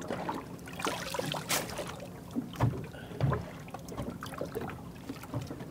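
Water slapping and splashing against a boat's hull, with scattered knocks and one sharper splash or clatter about a second and a half in, as a wet mesh dive bag is passed up over the gunwale and dropped on the deck.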